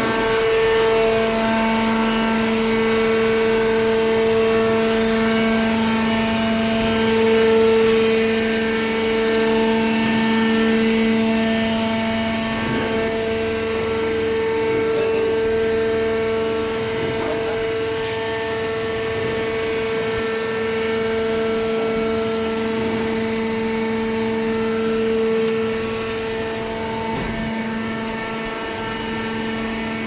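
Electric motor and hydraulic pump of a hydraulic waste-paper baler running with a steady whining hum, slightly quieter in the last few seconds.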